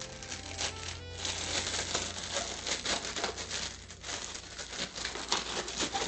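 Thin disposable plastic gloves crinkling and rustling in irregular crackles as they are pulled onto the hands, with soft background music underneath.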